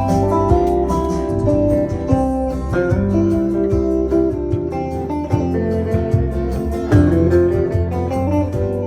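Instrumental break in a guitar-led song: guitar melody over bass and a steady beat, with no singing.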